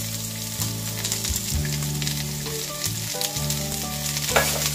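Sliced white onion and browned garlic frying in olive oil in a pan, a steady crackling sizzle. One sharp knock near the end.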